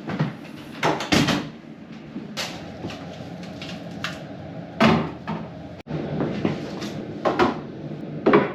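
Several sudden knocks and thuds, like doors or lids being opened and shut, over a steady low hum.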